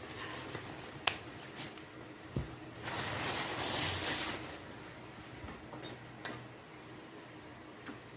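Small objects being handled: a few sharp clicks and taps, and a hissing rustle in the middle lasting about a second and a half, like packaging being unwrapped.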